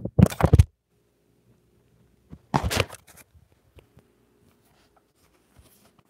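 Handling noise on a phone's microphone as the phone is moved about: two short bursts of rubbing and bumping, one right at the start and one just under three seconds in, with a few faint clicks between.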